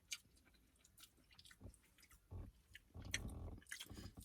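Faint chewing and small wet clicks of someone eating crab legs, with a few soft bites and mouth sounds about halfway through and again near the end.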